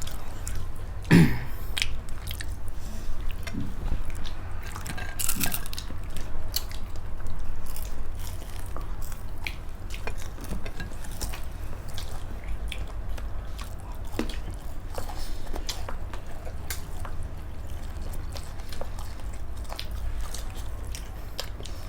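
People chewing and biting food close to the microphone, with many small wet clicks and crunches. A steady low hum runs underneath, and there is a short, louder sound about a second in.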